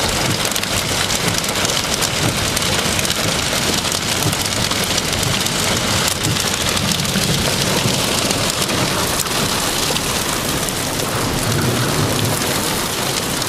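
Violent thunderstorm wind howling and buffeting the microphone, with heavy rain and small hail pelting down in a steady, loud roar.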